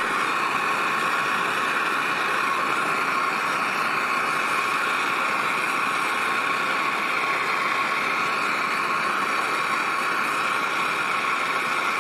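Gas torch flame hissing steadily while it heats a brass cup of brass chips from below to temper a steel die.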